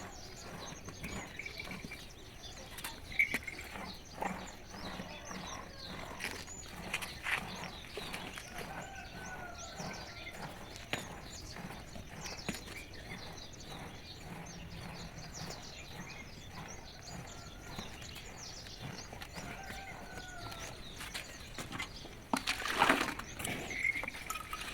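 Quiet farmyard ambience with scattered small knocks and clicks and a few short bird chirps and gliding calls, then a louder burst of noise near the end.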